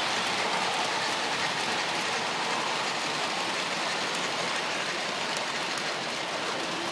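Model steam locomotive and freight cars rolling past close by on the layout's track: a steady, even rushing noise of the wheels on the rails.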